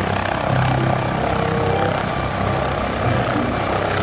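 MD 902 Explorer air-ambulance helicopter hovering just off the ground. Its rotor and turbine engine run with a steady, even noise.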